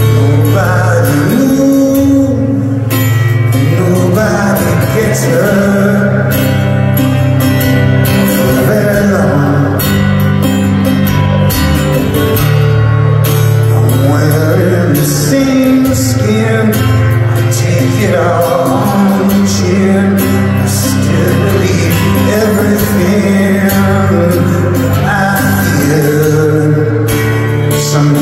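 Live rock song: a man singing at the microphone over strummed acoustic guitar, with steady low sustained bass notes underneath, loud and continuous.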